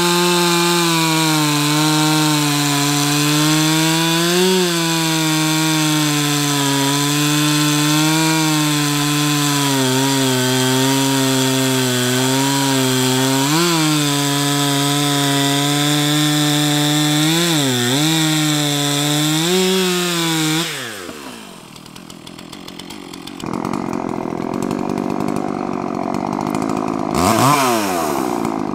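Stihl MS362 two-stroke chainsaw running at full throttle while bucking a large log, its pitch dipping and recovering slightly as the chain loads up in the cut. About two-thirds of the way through it winds down and goes quieter. Then a second, yellow chainsaw runs rougher and is revved up and down a couple of times near the end.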